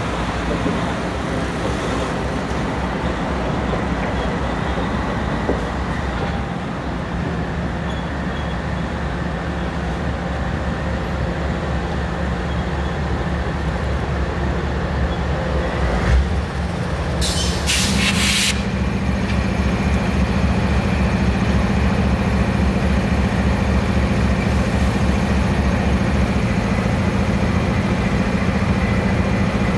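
GE Dash 9-40CW diesel locomotive's V16 engine running steadily close by. About seventeen seconds in comes a loud hiss of air from the brake system lasting a second or so, after which the engine note steps up slightly.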